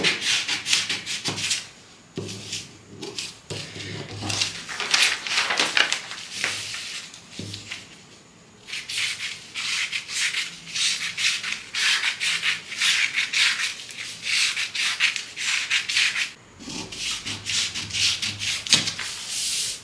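Scissors cutting through a large sheet of pattern paper, a run of crisp snips mixed with the paper rustling and crackling as it is handled. The cutting pauses briefly about 2 s and 8 s in.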